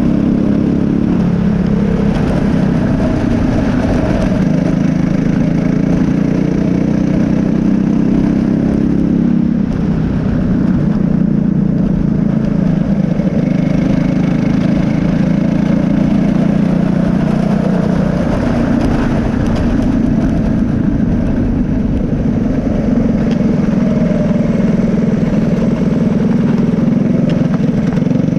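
Briggs & Stratton LO206 four-stroke single-cylinder kart engine running at race pace on a lap. Its pitch drops as the throttle lifts for corners, about a second in, around ten seconds in and again near eighteen seconds, and climbs again on each straight.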